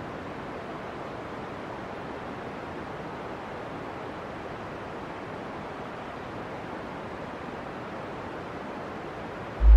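Steady rushing hiss, even and unchanging, with no distinct events.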